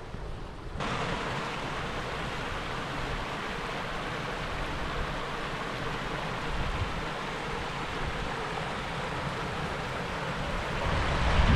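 Steady rushing of running water that starts suddenly about a second in, with low wind rumble on the microphone underneath that grows stronger near the end.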